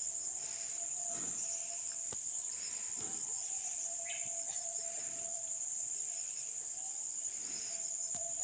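Insects, such as field crickets, trilling in the grass as a steady high-pitched drone.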